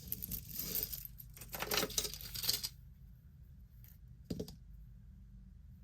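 Metal jewelry pieces clinking and jangling against each other as they are handled, for a couple of seconds, followed by a single soft knock about four seconds in.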